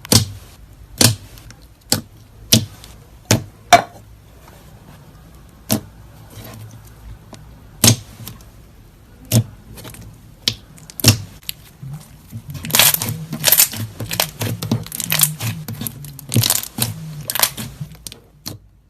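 Slime being handled: sharp popping clicks about once a second, then from about two thirds of the way in a denser run of crackling pops.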